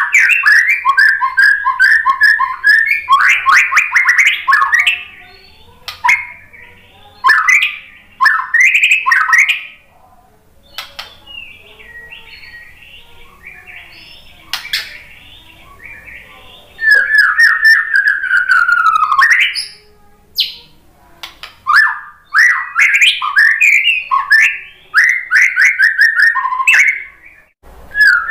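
White-rumped shama (murai batu) singing loud bursts of rapid, varied song phrases, full of mimicked bits from other birds' songs, with quieter twittering in the middle and a long falling phrase about seventeen seconds in.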